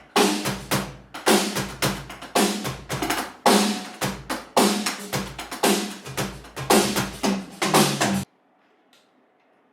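Roland TD-50 electronic drum kit played through its sound module: a busy drum-kit pattern of bass drum, snare and cymbal strikes that stops abruptly about eight seconds in.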